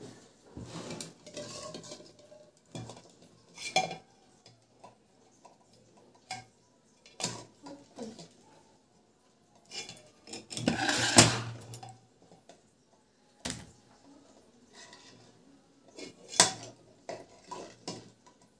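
Irregular clinks and knocks from an aluminium pressure cooker and a plastic bowl as boiled eggs and potatoes are lifted out of the cooker, with the loudest clatter about eleven seconds in.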